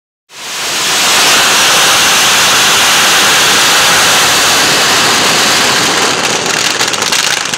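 Dense barrage of firecrackers packed inside a burning king boat, so many going off at once that they merge into a loud continuous roar. A little before the end it thins into separate cracks and bangs.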